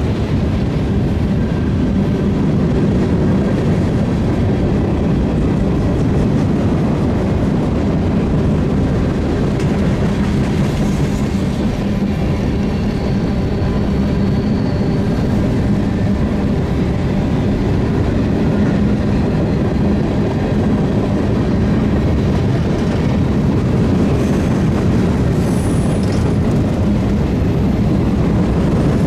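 Union Pacific freight train rolling steadily past, a continuous rumble of wheels on rail with some clickety-clack. Faint high wheel squeals come and go briefly.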